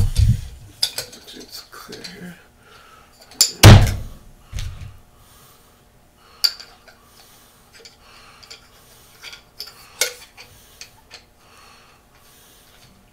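Scattered clicks and knocks of tools and containers being handled on a workbench, with heavier thumps at the start and near four seconds in, then lighter clicks spread out.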